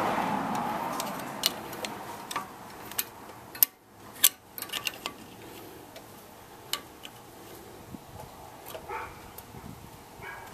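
Irregular sharp metal clicks and clinks of tools and brake hardware being handled at the caliper during a brake pad fitting. The two loudest come about three and a half and four seconds in.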